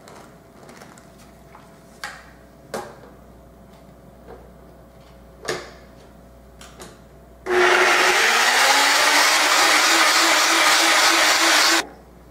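NutriBullet blender running for about four seconds, blending fresh mango, juice and cilantro into a puree; it starts about seven and a half seconds in and cuts off suddenly. Before it starts, a few clicks and knocks as the cup is handled and set on the base.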